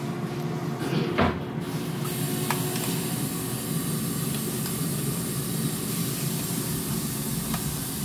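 A knock about a second in, then water running steadily from a kitchen tap, turned on about two seconds in, as hands are washed.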